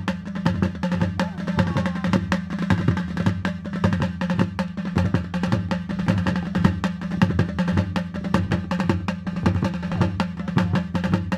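Hausa drum ensemble playing: large cylindrical double-headed drums beaten with sticks and small hand drums, in a fast, dense, steady rhythm with a deep booming pulse underneath.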